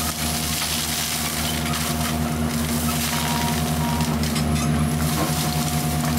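Tracked forestry mulcher running steadily under load, its engine and hydraulic rotor head shredding brush and undergrowth. The engine's steady low drone carries a thin steady whine and the dense crackle of shredded material.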